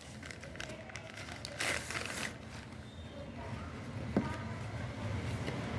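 Plastic courier mailer crinkling as hands open it and pull out the card packet, with a louder rustle about two seconds in and a single click a little after four seconds.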